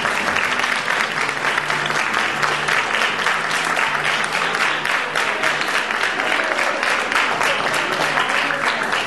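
Audience applauding steadily through a curtain call, with music playing underneath.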